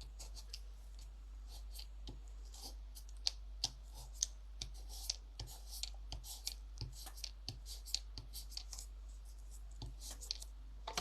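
Faint, irregular clicks and light scratches of hands handling paper craft pieces and tools on a work surface.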